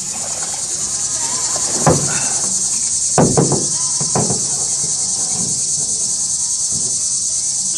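Loud, steady chorus of summer insects, a dense high-pitched buzz that never lets up. A few sharp knocks come through about two seconds in and again around three to four seconds in.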